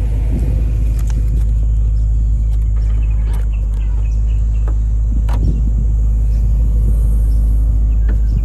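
BMW M3's 4.0-litre V8 idling with a steady low rumble, with a few light knocks over it.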